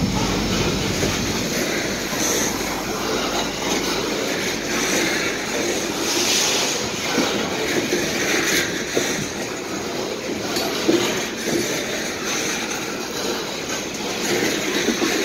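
Coal train's hopper cars rolling past close by: a steady rumble and clatter of steel wheels on the rails, its deepest rumble thinning out after about four seconds.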